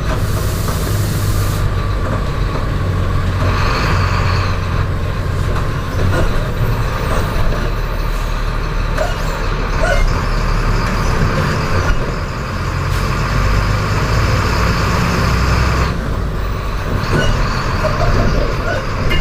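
Volkswagen 17.230 EOD bus's diesel engine running on the road, its pitch stepping up and down with the revs and gear changes. It opens with a sharp hiss of released air, about a second and a half long.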